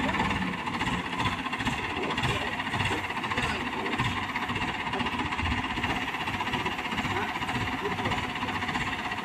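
Mobile crane's engine running steadily while the crane lowers a suspended steel bucket to the ground.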